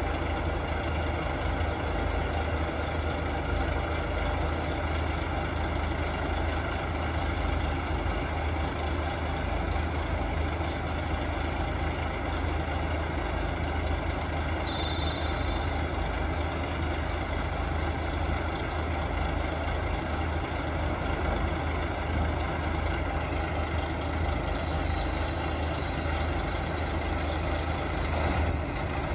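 Diesel railcar engine idling steadily with a deep, even hum.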